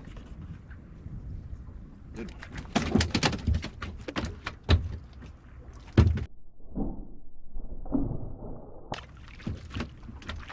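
Knocks, clicks and footfalls on a boat deck as a person moves about and handles gear. The sounds come in a busy cluster about two to four seconds in, with a single sharp knock about six seconds in and another near nine seconds.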